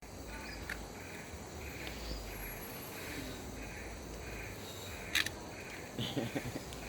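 An animal calling over and over in an even rhythm, about once every two-thirds of a second, over a low steady rumble, with a sharp click about five seconds in.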